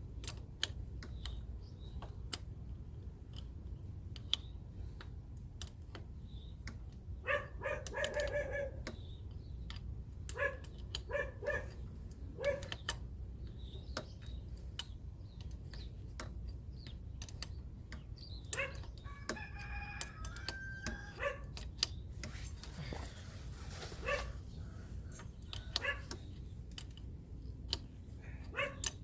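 A rooster crowing twice, with shorter calls between, over a steady low rumble and scattered small clicks.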